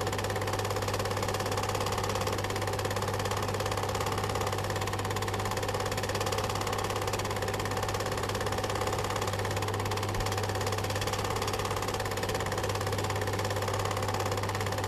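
Steady, fast mechanical clatter over a constant low hum, running evenly without change.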